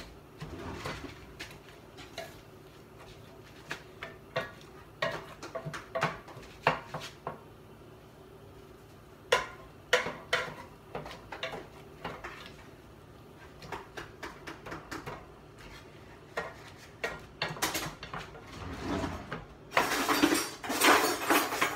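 Metal utensils clicking, knocking and scraping against a plate and baking pan as a cake is cut and a slice is served, over a faint steady hum. A denser, louder clatter comes near the end.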